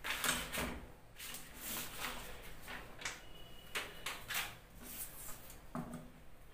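A long plastic ruler being handled on a drafting table: a string of short scrapes, knocks and slides as it is lifted, swung round and laid back down on the cloth.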